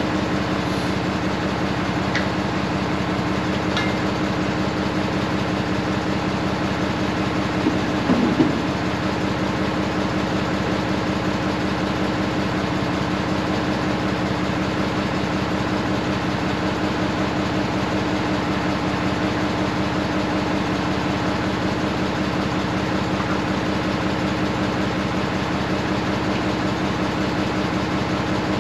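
Tractor diesel engine idling steadily. About eight seconds in, a short louder sound with a sliding pitch rises over it.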